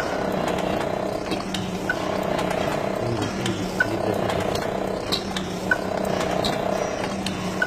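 Fully mechanical cigarette filter-tube filling machine running, with a steady mechanical hum and a sharp click about every two seconds as it cycles, plus lighter ticks between.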